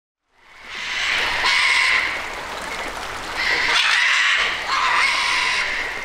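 Parrots giving repeated harsh, raspy squawks, fading in over the first second.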